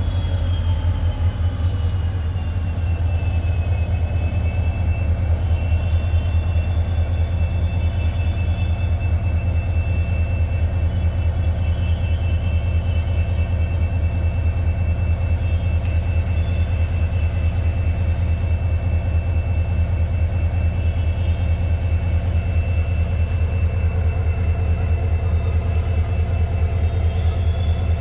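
WDG4 (EMD GT46MAC) diesel-electric locomotive humming: a steady, loud low drone. A high whine drops in pitch over the first few seconds and then holds steady.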